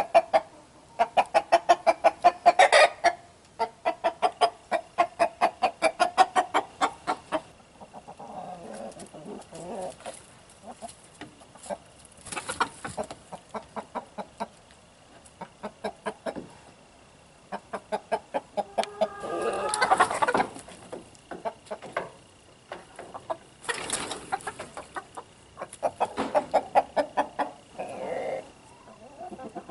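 Hens clucking in rapid runs of short calls, in bursts, loudest through the first several seconds and again in shorter runs later. The hens are unsettled by a rooster newly added to the flock.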